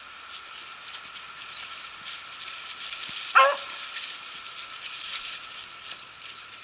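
A beagle gives a single short, loud yelp about three seconds in, the hound's voice while trailing rabbit scent, over a steady high hiss.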